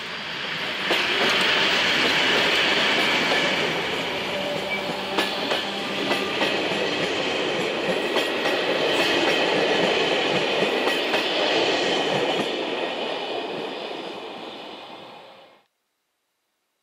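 ZSSK class 736 diesel locomotive passing close with its engine running, followed by its passenger coaches, the wheels clicking over the rail joints. The sound swells about a second in, fades near the end, then cuts off suddenly.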